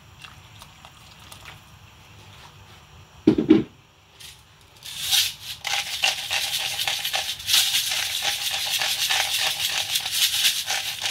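A single low thump, then a container of dry seasoning being shaken over the pot: a dense, steady rattle from about five seconds in.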